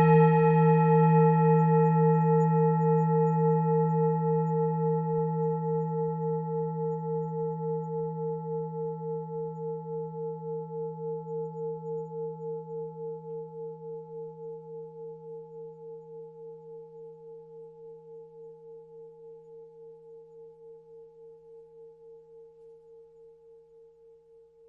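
Tibetan singing bowl ringing after a strike, its tone slowly fading with a regular pulsing wobble until it dies away near the end.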